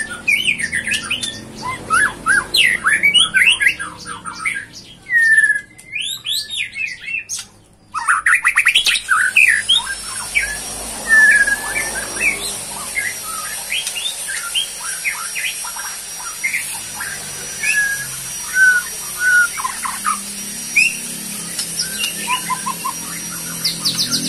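Birds chirping and calling rapidly, many short sweeping notes overlapping, with a brief break about eight seconds in.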